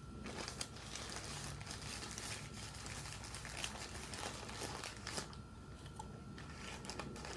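Steady crinkling and crackling with many small clicks.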